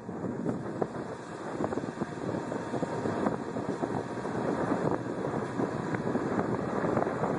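Vehicle driving along a snow-covered trail, its engine and tyres on the snow making a steady rumble with many small bumps and knocks, and wind on the microphone.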